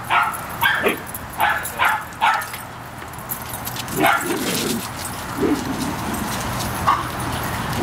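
Dogs at play, yipping and barking: a quick run of short yips in the first couple of seconds, then a few lower calls about four to five seconds in.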